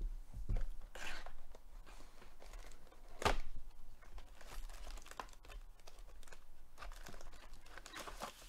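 Plastic wrap crinkling and a cardboard trading-card hobby box being torn open, with one sharp snap about three seconds in. Foil card packs rustle as they are pulled out of the box.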